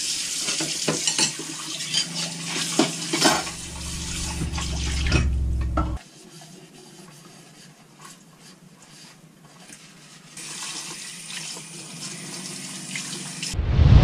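Tap water running into a galley sink while dishes are washed, with clinks of plates and cutlery. The water stops about six seconds in and runs again near the end, which closes on a sudden loud whoosh.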